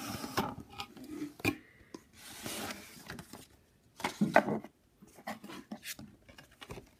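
Corrugated cardboard shipping box being handled by hand: flaps rubbing and folding back, paper inside rustling, with scattered taps and scuffs. The loudest scuffle comes about four seconds in.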